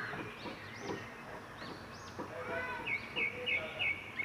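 Small birds chirping in the background, with a run of four quick repeated notes about three seconds in.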